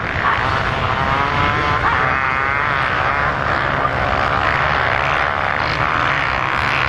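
Many dirt-bike engines revving together, a dense wavering drone, over a steady low rumble.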